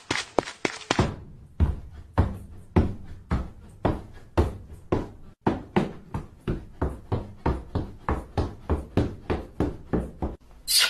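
High-heeled shoes clacking on a hard stage floor as a woman walks, a steady rhythm of about two sharp steps a second, a little quicker in the first second. A short hissing noise comes near the end.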